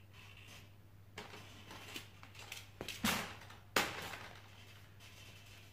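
Metal shopping trolley rattling and knocking as a person climbs out of it, with scuffs and rustles of shoes and clothing. The sharpest knocks come about three and four seconds in, over a faint steady hum.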